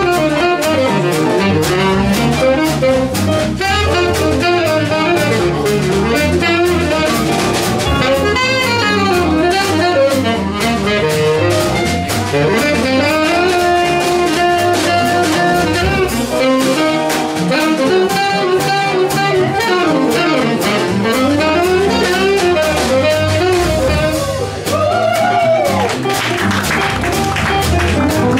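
Small swing jazz band playing live: a saxophone solo over piano, guitar, double bass and drums.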